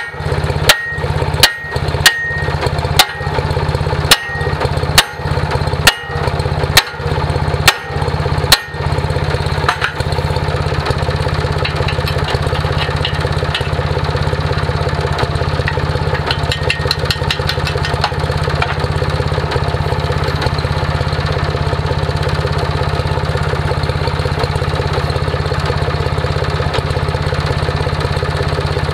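About ten hammer blows on the steel gang mount of a disc harrow, roughly one a second, over a steadily idling engine. The blows stop about nine seconds in, leaving only the engine idling.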